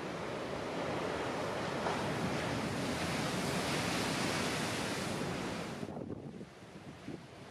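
Heavy storm surf: the rushing noise of big swell breaking, which builds and holds, then falls away sharply about six seconds in, leaving wind gusting on the microphone.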